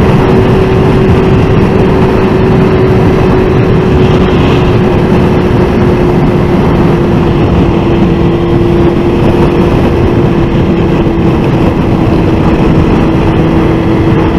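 Suzuki GSX-R750 inline-four engine running at a steady cruise, its note drifting slowly lower, under heavy wind noise on the helmet camera's microphone.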